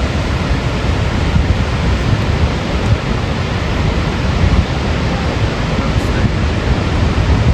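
Niagara Falls, a loud steady rush of falling water with no breaks.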